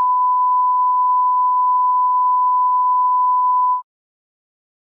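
Broadcast line-up test tone accompanying SMPTE colour bars: one pure, steady pitch, cutting off suddenly about four seconds in.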